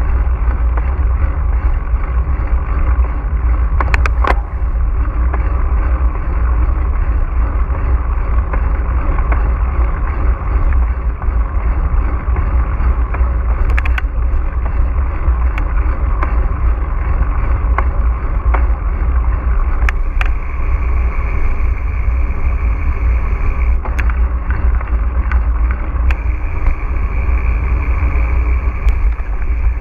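Mountain bike ridden on a trail, heard from a GoPro mounted on the bike: a steady rumble of wind on the microphone and tyres rolling over dirt, with scattered clicks and knocks as the bike goes over bumps.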